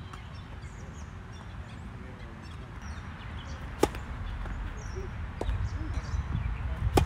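Two tennis serves struck by a racket, each a sharp pop, about three seconds apart: one just past the middle and the louder one at the very end, over a low steady rumble.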